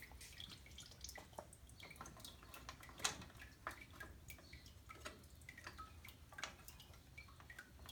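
Oil dripping from an opened line during a tear-down, left to drain: faint, irregular drip ticks, one a little louder about three seconds in.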